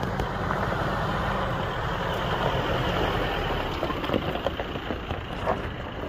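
Toyota Hilux pickup's engine running low and steady as it crawls up a rocky dirt track, with a few short knocks near the end.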